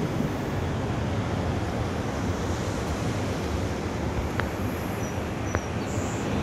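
Steady rushing noise of ocean surf breaking below, mixed with wind on the microphone, with two faint clicks about four and five and a half seconds in.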